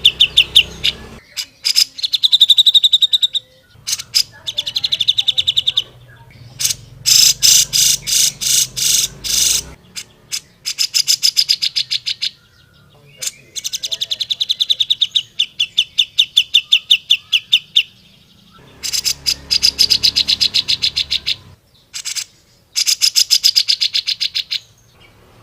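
Grey-cheeked bulbul (cucak jenggot) singing: loud bursts of fast, rattling repeated notes, each burst lasting one to three seconds, with short pauses between.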